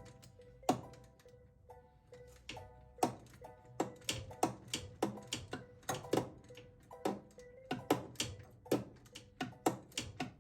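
Background music: short melodic phrases of held notes over a steady clicking beat, about two beats a second.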